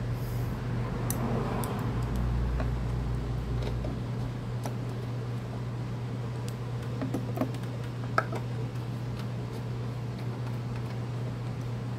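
Scattered light metal clicks and taps of a socket and extension as the recoil starter's bolts are run in by hand, over a steady low hum.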